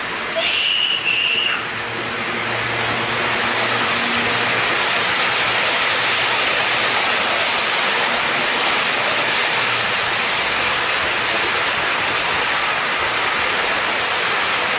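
HO-scale model container train, hauled by a model EH500 electric locomotive, rolling past on the layout's track: a steady rattling rush of wheels on rails with a faint low hum. Near the start there is a loud, high-pitched squeal lasting about a second.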